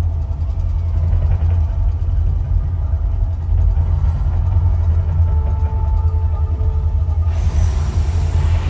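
Mirage volcano show eruption: a loud, steady deep rumble, and about seven seconds in a pyrotechnic fireball bursts with a rush of noise lasting under two seconds.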